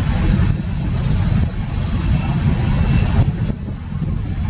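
Freight train of coal gondolas rolling past: a steady low rumble of wheels on the rails.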